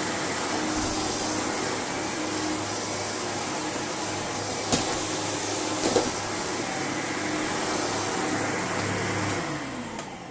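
Sebo Automatic X1 upright vacuum cleaner running steadily on carpet, with two brief knocks around five and six seconds in. Near the end it is switched off and the motor winds down, its whine falling in pitch.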